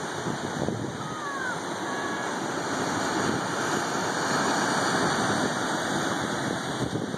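Ocean surf breaking and washing over rocks below a cliff, a steady rushing that swells a little toward the middle. A few faint short chirps sound about a second in.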